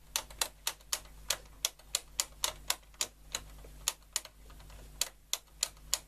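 Pushbuttons on the front of a Siemens RG13 radio being pressed over and over, giving sharp mechanical clicks several times a second at an uneven pace. The buttons are being worked to spread freshly sprayed contact cleaner through the switch contacts.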